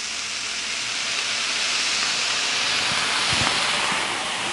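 Soy sauce sizzling on a hot electric griddle of fried rice: a steady hiss that swells over the first couple of seconds and eases slightly near the end. A couple of soft knocks come near the end.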